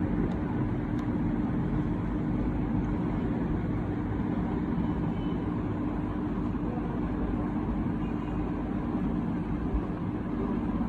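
Steady mechanical hum with a constant low tone over even background noise.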